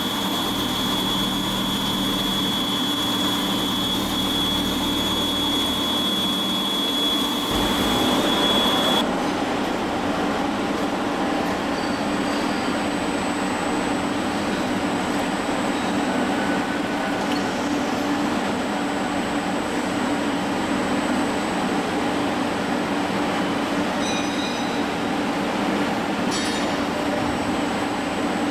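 CNC milling head running under coolant: chamfering a steel ring with a steady high whine over the spray of coolant. About eight seconds in the sound changes abruptly to the spindle tapping an M24 thread, a steady machine running noise with a fainter high tone.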